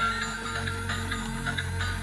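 Background music: a melody of short, bright notes over held low bass notes.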